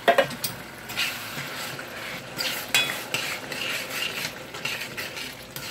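A utensil stirring and scraping around a metal pot of bubbling tomato sauce and sofrito, with irregular clinks against the pot over a steady sizzle. A sharp clank at the very start is the loudest sound.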